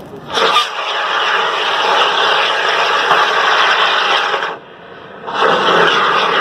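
Carbon dioxide fire extinguisher discharging through its hose in a loud, steady hiss. The flow is shut off for under a second about four and a half seconds in, then opened again.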